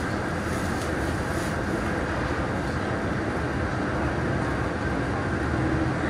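Steady rumble of road traffic, a constant noise with no single vehicle standing out.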